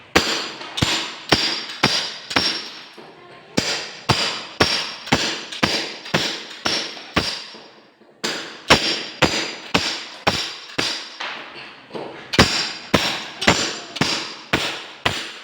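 Hammer blows struck repeatedly, about two a second, in four runs with short pauses between them, each blow ringing with a metallic tone, as in work on the concrete and tile of a kitchen sink.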